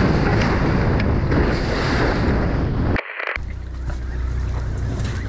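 Boat under way on open water, with wind buffeting the microphone over the rush of water and the low drone of the engine. The sound cuts out abruptly about three seconds in, and a quieter, steady low engine hum follows.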